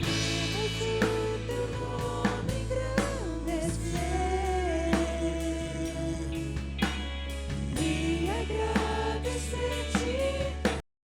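Worship band playing with singing, drum kit and bass. The sound cuts off suddenly near the end as the power fails.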